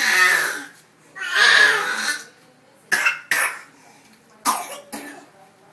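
Young boys yelling in shrill, harsh bursts: two longer screeches, then four short sharp ones.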